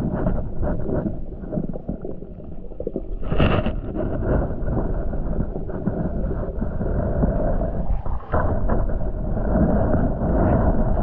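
Muffled underwater noise picked up by a camera held beneath the water: a low, rumbling wash of moving water with scattered knocks and bumps of handling, and a brief brighter swish about three and a half seconds in.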